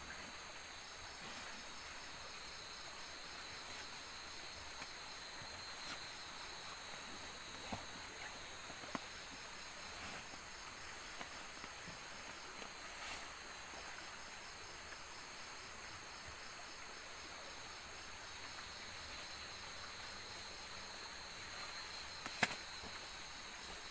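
Night insect chorus: steady high-pitched trilling of crickets and other insects, with a fine rapid pulse. A few short clicks and rustles of a dry bag and sleeping bag being handled, the sharpest click near the end.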